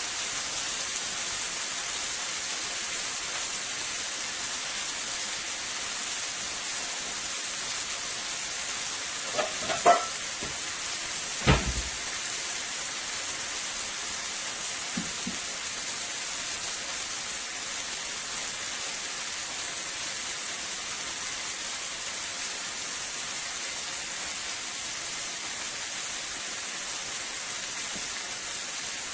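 Porterhouse steak searing in a little olive oil on a hot grill pan, a steady sizzle. Two brief knocks break in about ten and twelve seconds in.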